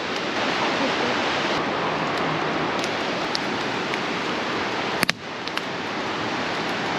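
Steady rushing noise, with one sharp click about five seconds in.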